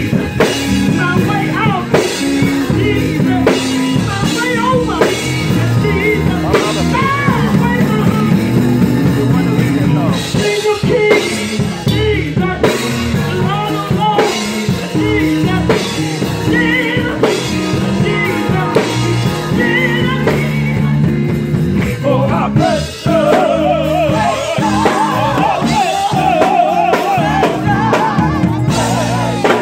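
Live gospel music: a choir singing with keyboard and drum kit accompaniment. About two-thirds of the way through, a solo voice with a wide vibrato rises above the rest.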